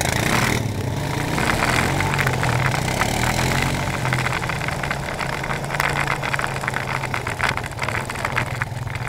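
ATV engines running at low speed over a rough dirt trail, with frequent short knocks and rattles from the jolting ride.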